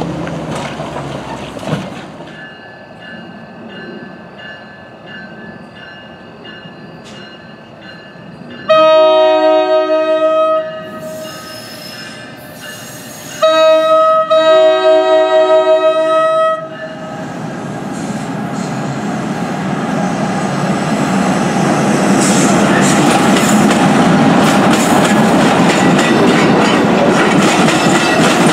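A crossing bell rings steadily. Then an NJ Transit ALP-46A electric locomotive's air horn sounds two long blasts, the second longer and loudest. The train's rumble swells and holds loud as the locomotive and Multilevel coaches pass, with wheels clattering on the rails.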